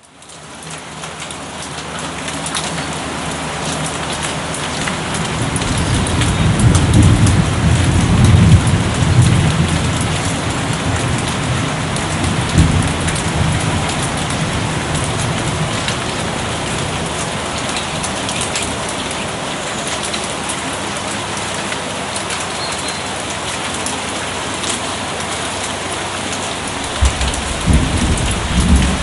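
Steady rain falling, fading in at the start, with distant thunder rumbling low: a long roll that swells about a quarter of the way in and slowly dies away, then another rumble beginning near the end.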